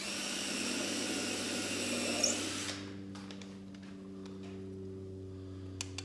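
Cordless drill running at full speed into a pine board joint for about two and a half seconds, then stopping abruptly. A steady low hum runs underneath, and there is a single click near the end.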